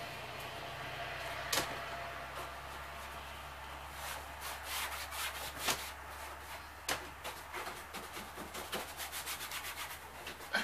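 Paintbrush bristles rubbing against a travel trailer's interior wall in short, irregular strokes, several a second from about four seconds in, with one earlier stroke; a faint steady low hum underneath.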